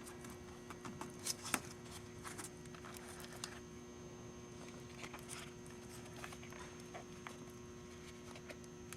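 Faint scattered taps and rubbing as a rubber door weatherstrip is pressed by hand into its adhesive along the door opening, over a faint steady hum.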